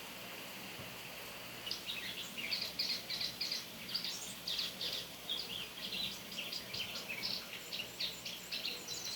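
Double-collared seedeater (coleirinha) singing a long, fast twittering song of quick chirps and trills, starting about two seconds in, over a steady hiss of rain.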